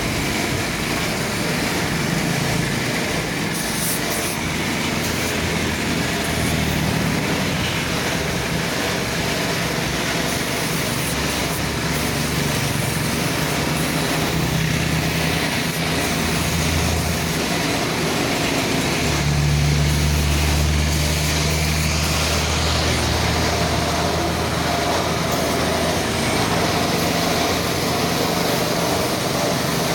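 A motor or engine running steadily with a hiss, its low hum growing stronger for a few seconds about two-thirds of the way through.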